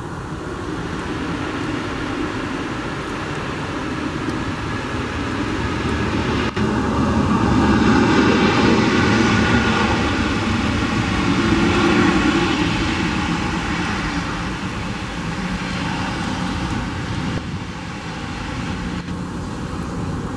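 Jet engines of an Airbus A320-family airliner during its landing roll on a wet runway: a steady rushing engine noise that swells to its loudest about eight to twelve seconds in, then slowly fades as the aircraft rolls on.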